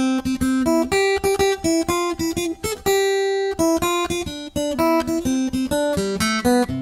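Guitar playing an instrumental song intro: a melody of single picked notes at about four a second, with one held note about three seconds in.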